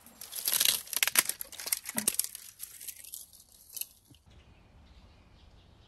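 Dry brushwood twigs crackling and snapping as they are bent and broken by hand: a dense run of sharp cracks over the first two seconds or so, then a few scattered ones.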